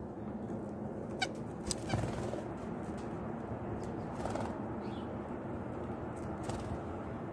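Small birds, a downy woodpecker and a white-breasted nuthatch, pecking at seed on a concrete ledge: a few sharp taps between one and two seconds in, and a brief flutter of wings a little past four seconds as the woodpecker takes off. A steady low hum runs underneath.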